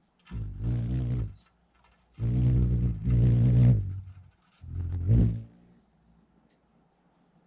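Rufous hummingbird's wings humming close to the microphone in about four bursts of roughly a second each, with a high buzzy edge over a low steady hum. The bursts stop after about five seconds.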